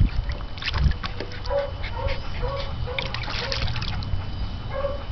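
Small dog splashing and pawing in the water of a plastic wading pool, with short whines repeating about twice a second, pausing shortly before the end.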